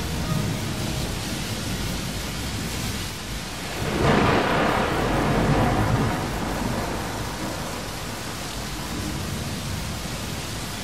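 Steady rain with a roll of thunder that swells about four seconds in and slowly dies away.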